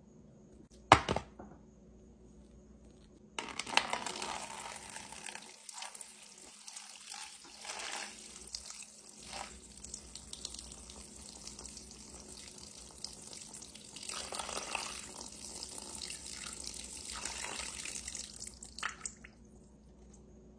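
A hard peach pit drops into an empty paper bowl with one sharp knock about a second in. Then a thin stream of water pours onto it and fills the bowl, a steady splashing hiss for about fifteen seconds that stops shortly before the end.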